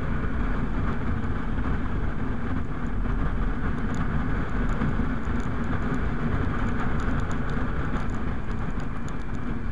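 Motorcycle engine running steadily at cruising speed under a constant rush of wind and road noise on the rider's camera. A few faint ticks are scattered through the second half.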